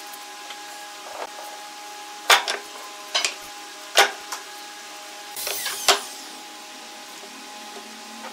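Wooden boards handled and set down on steel pipe clamps on a wooden workbench: a handful of sharp wood-and-metal knocks two to four seconds in, then a short scraping clatter near six seconds, over a faint steady hum.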